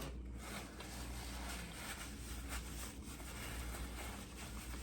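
Quiet room tone with a steady low hum and no distinct sound event.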